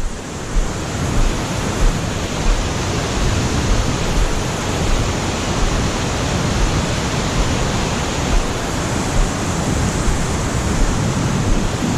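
Waterfall on Roaring Brook rushing steadily: a loud, even noise of falling water with no breaks.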